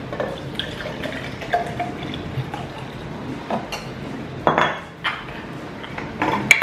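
Cold brew coffee poured from a glass bottle into a mason-jar tumbler, followed by knocks and clinks as the bottle is set down on the granite counter and the creamer bottle is picked up. The loudest knock comes past the middle, and a sharp click comes near the end.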